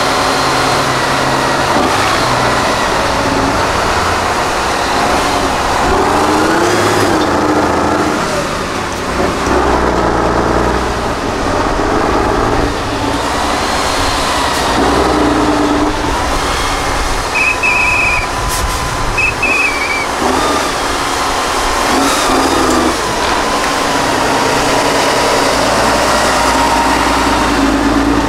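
Tatra 8x8 trial truck's diesel engine working hard under heavy load as it climbs a steep dirt bank, its revs rising and falling over and over. Two short high tones sound about two-thirds of the way through.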